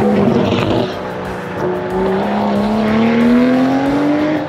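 A car engine accelerating hard. Its pitch rises, drops at a gear change about a second in, then climbs steadily through the next gear.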